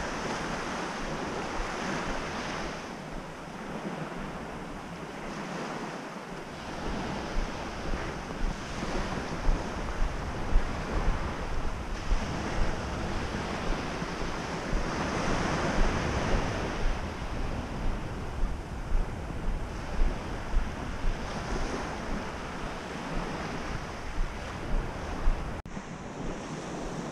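Waves washing onto the beach of a sand spit, with wind buffeting the microphone. From about eight seconds in, a run of regular soft thumps comes about one and a half times a second.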